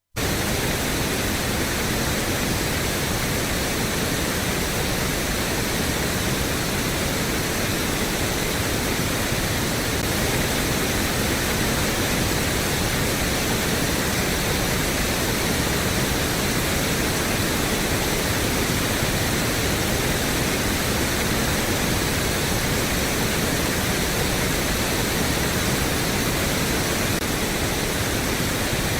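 Pink noise test signal played through a Yamaha EQ-70 ten-band analogue graphic equalizer: a steady, even hiss across the whole range, its tonal balance shifting slightly over time as the band controls act on it.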